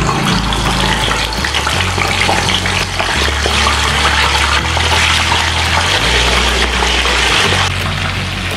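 Whole catfish sizzling as it is lowered into hot oil and deep-fried: a dense, steady hiss of bubbling oil. Background music plays a low bass line underneath.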